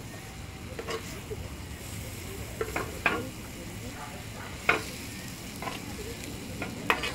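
Metal spoon scraping and clacking against a wide steel pan as meat and sliced onions are stirred over a wood fire, a handful of sharp clacks at irregular intervals over a steady faint frying sizzle.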